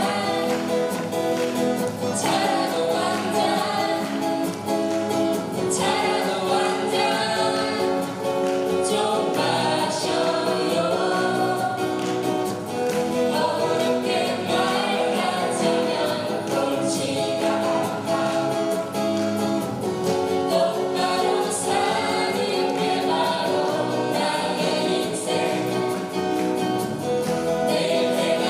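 Live acoustic band: several strummed acoustic guitars, an electric bass and a djembe, with voices singing together over them.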